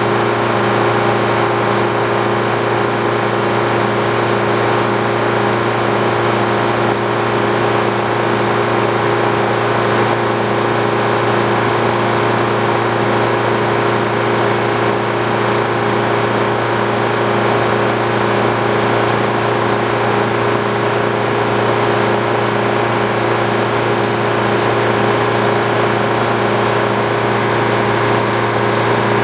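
Old Frick sawmill running at a steady speed, its engine holding an even, unchanging drone with no rise or fall in pitch.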